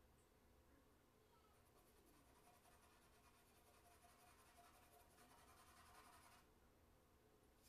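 Faint scratching and rubbing of a charcoal stick on drawing paper during shading, strongest about four and a half to six and a half seconds in.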